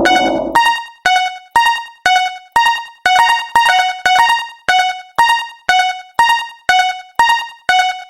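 Japanese railroad crossing warning bell ringing in even strikes, about two a second, alternating between two pitches. A loud rushing noise dies away in the first half second.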